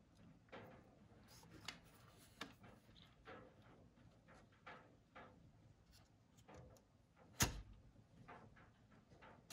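Faint clicks and taps of small carved wooden parts being handled and pressed together as landing gear and a rocket pod are fitted to a wooden helicopter model, with one sharper wooden knock about seven seconds in.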